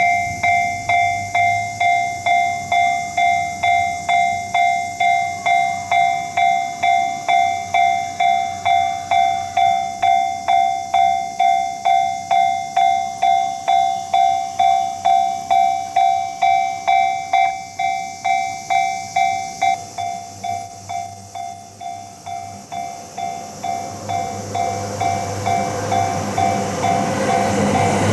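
Japanese railroad crossing warning bell ringing at about two strikes a second, each strike a bright ringing tone. After about twenty seconds it grows fainter, and near the end the rumble of an approaching train rises beneath it.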